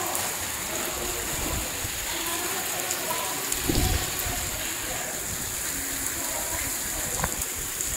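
Steady rain falling, an even hiss. About four seconds in there is a low thump, the loudest moment, and a short knock near the end.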